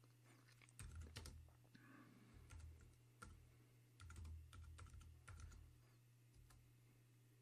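Faint typing on a computer keyboard: several short runs of keystrokes with pauses between them, over a low steady hum.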